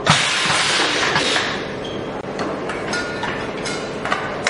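Pneumatic butane cartridge filling machine: a sudden loud hiss of air or gas venting from its heads, fading over about a second and a half, then several light metallic clinks of aluminium cans knocking on the steel worktable.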